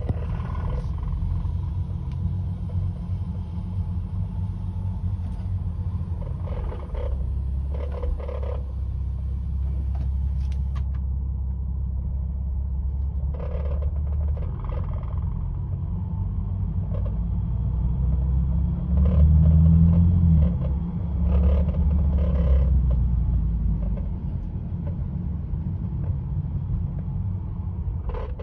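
Inside the cabin of a 2005 Ford Mustang convertible on the move: a steady low engine and road rumble that swells for a few seconds past the middle. Short, irregular bursts of rattling come from under the dashboard, toward the passenger side, at about 1000 RPM when cruising or off the throttle; the owner says it sounds like a loose bolt.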